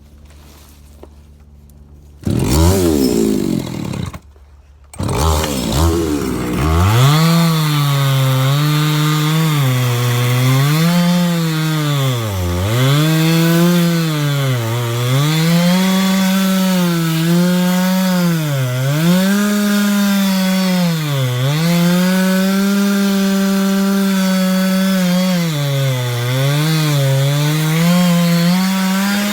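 Two-stroke chainsaw started about two seconds in. It revs, drops away briefly and picks up again, then cuts wood, its engine pitch dipping and recovering every couple of seconds as it bogs down in the cut.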